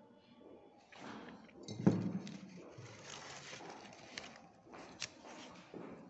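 Handling noise as paper flowers on drinking-straw stems and the phone filming them are moved: soft rustling and scraping with a sharp knock about two seconds in and a few lighter clicks later.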